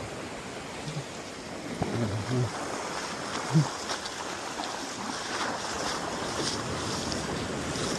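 Pacific Ocean surf washing up a sandy beach at an incoming tide: a steady rush of breaking waves and foam, growing a little louder over the last few seconds.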